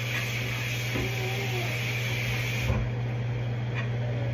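Kitchen range hood fan running over steaming pots: a steady hum with a hiss on top, and the hiss stops suddenly a little past halfway while the hum carries on.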